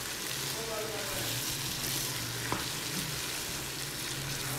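Chickpeas in an oily onion-tomato masala with fresh yogurt, sizzling in a frying pan as a wooden spatula stirs them. A single light knock of the spatula against the pan comes about two and a half seconds in.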